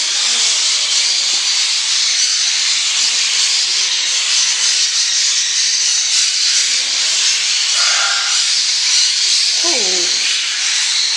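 Loud, continuous high-pitched chatter of a large flock of budgerigars in an indoor aviary, many birds chirping at once into an even wash of sound.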